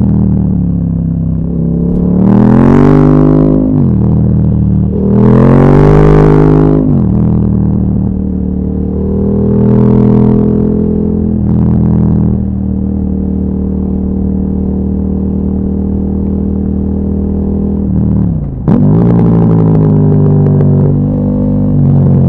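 KTM 1290 Super Duke R's 1301 cc V-twin engine pulling hard under way. It revs up twice in the first seven seconds, each time dropping back as the throttle closes, then holds fairly steady revs. About 18 seconds in the revs drop suddenly before it climbs again.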